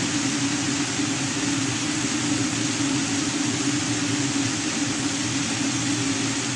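Kitchen extractor fan running: a steady hum with an even hiss.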